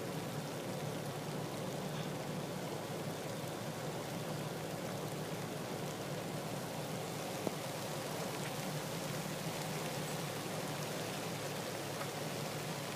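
Steady rain falling, an even hiss with an occasional sharp drop.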